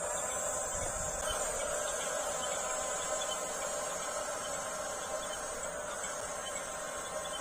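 Electric drive motors and plastic gearboxes of a radio-controlled model bulldozer whirring steadily as it works.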